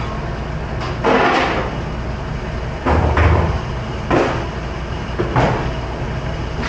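Plastic dish racks and dishware knocking and clattering at a commercial dish station, four short bursts, the loudest about three seconds in with a dull thud, over a steady low machine hum.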